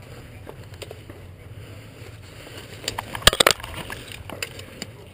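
Airsoft gun firing: a quick run of sharp cracks about three seconds in, over a steady low rumble.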